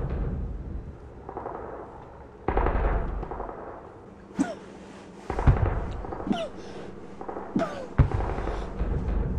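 Dark film soundtrack made of sound effects: a low rumble broken by three sudden heavy booms a few seconds apart, with short sliding tones between them.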